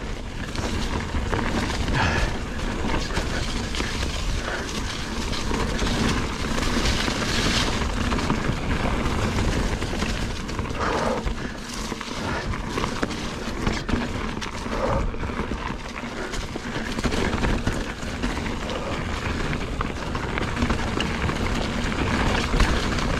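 Mountain bike riding over rough, rocky singletrack: a steady rush of tyre and wind noise with scattered knocks and rattles from bumps.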